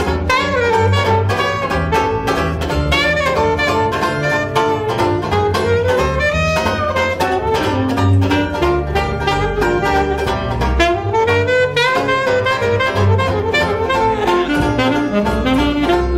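Alto saxophone playing a flowing jazz solo over a steadily strummed four-string banjo and a plucked double bass.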